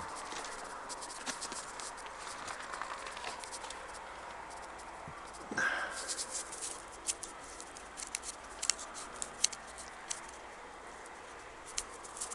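Footsteps crunching in snow, an irregular series of crisp crackles. A brief falling squeak comes about five and a half seconds in.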